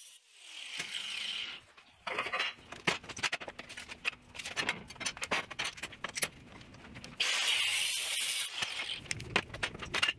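Angle grinder with a cut-off wheel cutting through square steel tubing, a hissing grind for a little under two seconds. Then come clanks and rattles of steel parts and hand tools set down and moved on a steel tabletop, and another short hiss of about a second and a half near the end.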